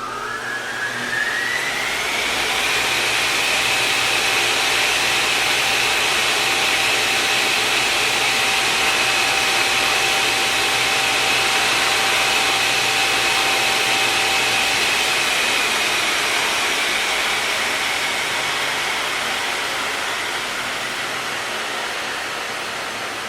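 Jet engine spooling up with a rising whine that levels off into a loud, steady rushing roar with a high whine on top, easing slightly near the end.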